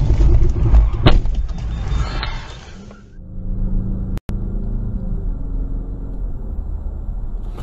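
Cars driving, heard from inside the vehicle: heavy low rumble with a sharp knock about a second in, dying away near three seconds. After a brief dropout, a steady, muffled drone of a car cruising on a highway.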